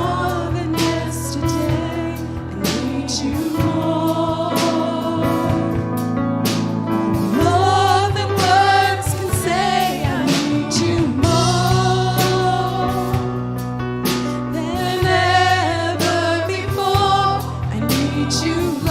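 Live gospel worship music: a group of voices singing over a band, with steady keyboard or bass notes and regular drum and cymbal hits.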